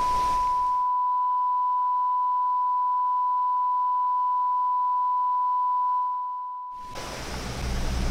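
A single steady high-pitched electronic tone, a pure beep-like sine held for about seven seconds while all other sound drops away; it fades out near the end as a rushing background noise returns.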